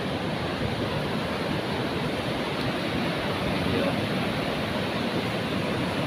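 Ocean surf breaking and washing up onto a wide sandy beach: a steady rushing noise with no single crash standing out.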